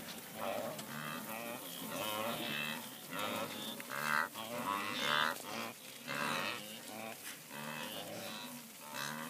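A herd of wildebeest (gnus) calling: many calls overlapping and following one another without pause, several close and loud, others further off.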